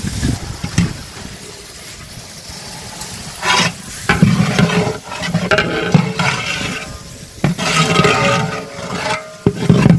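Long flat metal ladle scraping and stirring halved tomatoes into a big pot of frying onion and ginger-garlic masala. The strokes come in irregular loud bursts, mostly in the second half, over a steady background hiss.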